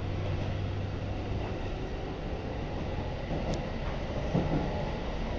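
Seibu Tamako Line train running, heard from inside the passenger car: a steady low noise from the wheels and running gear, with a single faint click about three and a half seconds in.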